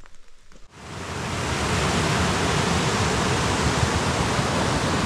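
Whitewater rapids rushing over rock ledges: a loud, steady rush of water that starts abruptly under a second in. Before it there are only faint scattered clicks.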